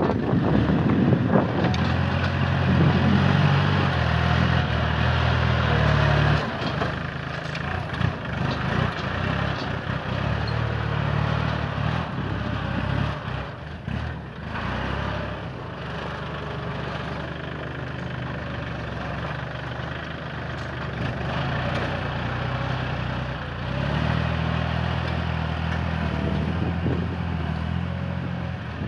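Kubota tractor's diesel engine running under load as it grades and pushes soil, its note stepping up and down as the work varies; it is loudest in the first few seconds, eases off about six seconds in, and picks up again near the end.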